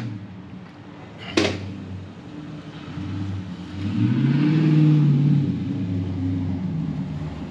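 Loud car driving past, its engine swelling to the loudest about four to five seconds in and then easing off. A single sharp click about a second and a half in.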